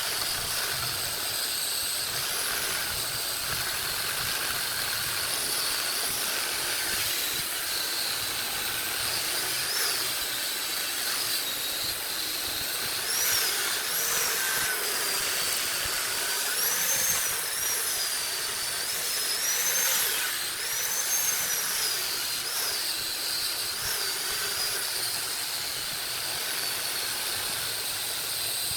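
Wood lathe at work with a steady hiss; in the middle stretch a cutting tool on the spinning wood gives a thin whine that rises and falls in pitch.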